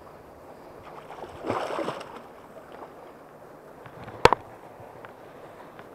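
River water rushing and swirling close to the microphone around a wading angler, with a brief louder surge of water about a second and a half in. A sharp double click, the loudest sound, about four seconds in.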